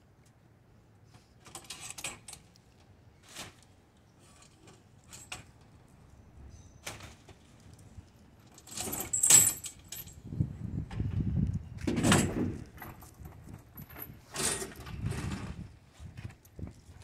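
Yard gear being handled in the bed of a pickup truck: scattered light clinks and rattles, then louder clattering and scraping from about halfway in, with a sharp metallic jangle near the midpoint.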